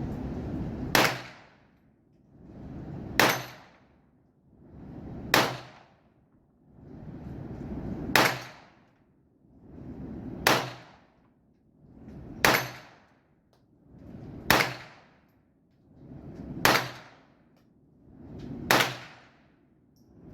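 Ruger Mark I .22 LR semi-automatic pistol fired nine times in slow, aimed shots about two seconds apart, with a short clang of steel dueling-tree plates being hit after the shots.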